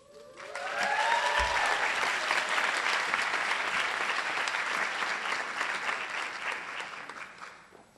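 An auditorium audience applauding, swelling quickly and fading out near the end, with a rising whoop in the first couple of seconds.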